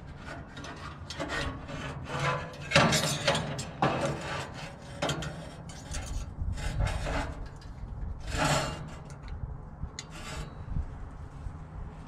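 Metal grill burner parts scraping and rubbing as they are handled and lined up, in irregular strokes with a few sharper clicks and knocks.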